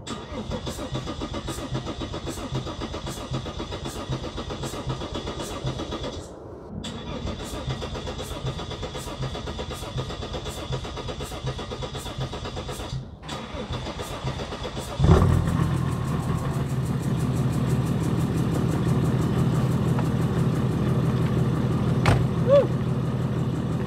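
Mercedes E320 CDI's OM648 straight-six turbo diesel being cranked on the starter for a long time after sitting for two months, with two short breaks. It catches about fifteen seconds in and settles into a louder, steady run. The injectors are refitted on old seals and barely tightened, so combustion gas leaks out past them.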